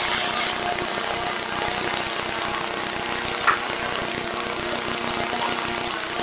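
Small multirotor drone's propellers whirring steadily in flight, a constant buzz with several held tones. A brief sharp sound cuts in once, about three and a half seconds in.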